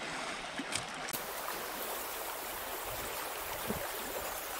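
Water of a small, fast river rushing over a shallow riffle: a steady hiss-like flow, with a couple of faint knocks.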